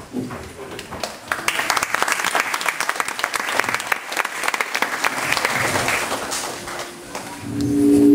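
Audience applauding with many hands clapping, building about a second in and dying away after about six seconds. Near the end comes a short held tone.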